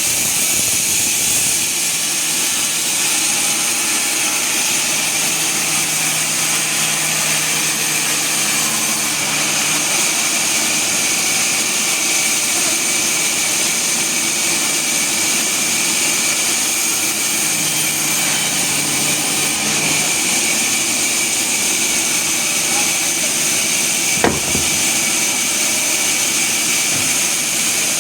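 Sawmill machinery running steadily, with one sharp knock toward the end.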